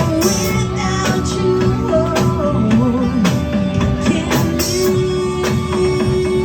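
Music playing: a song with a singing voice over held notes and steady percussion.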